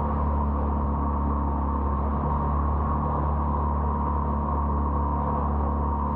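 Boat engine running steadily under way: an unchanging low drone with a thin high whine riding on it.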